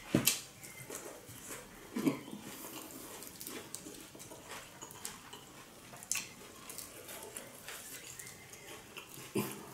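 Close-miked chewing of a fried minced-pork spring roll wrapped in lettuce, with the crackle of lettuce leaves being folded by hand. Scattered small clicks and smacks, a few louder ones.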